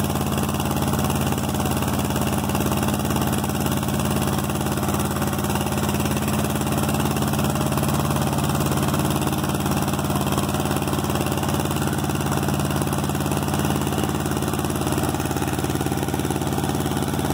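15 hp Mitsubishi Satoh compact tractor's engine running steadily, driving a homemade leaf blower off its PTO at the 1000 rpm speed. The engine and blower keep an even, unchanging note.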